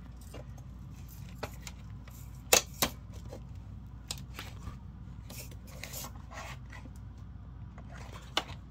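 Hard plastic parts of an animatronic jumping spider's base clicking and knocking as a support foot is worked into the base by hand, with two sharp clicks close together about two and a half seconds in and smaller clicks and rubbing scattered around them.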